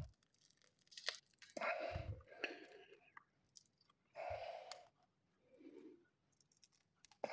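Durian husk and fibrous pith being pulled and torn apart by hand: a few short crunching, tearing bursts with a couple of sharp cracks between them.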